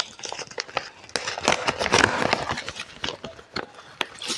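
Rustling, with many light clicks and taps, as hands handle things. A longer spell of rustling runs from about one to two and a half seconds in.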